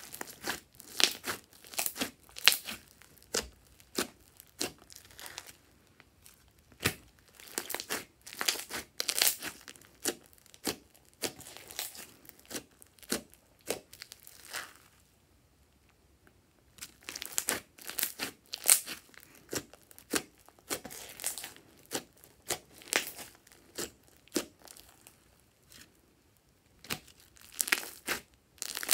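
Crunchy slime full of small foam beads being squeezed and pressed by hand, crackling with quick runs of sharp clicks in bursts, with two short pauses between handfuls.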